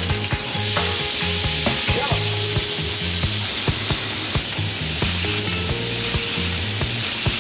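Pork spare ribs sizzling as they pan-fry in a wok over medium heat, being turned with chopsticks; the sizzle swells to a loud, steady hiss about half a second in. A beat of background music runs underneath.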